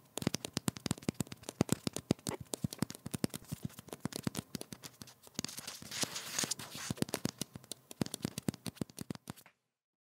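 Rat scratching and scrabbling: a rapid run of dry clicks and scrapes, with a hissier stretch of scraping a little past the middle. It stops shortly before the end.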